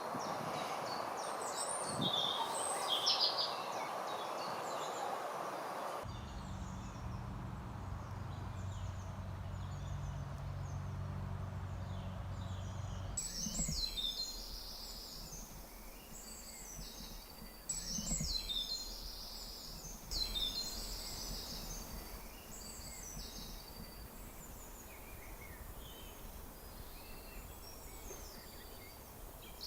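Several wild birds singing and calling: short, quick, high phrases repeated again and again. A low steady hum lies under them for a few seconds in the middle.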